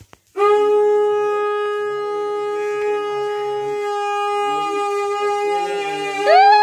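Conch shell (shankha) blown for the aarti: one long, loud, steady note starting about half a second in, which jumps sharply up in pitch near the end.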